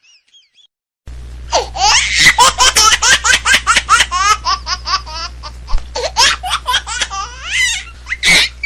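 A person laughing hard in a long run of quick, high-pitched bursts, starting about a second in over a steady low hum.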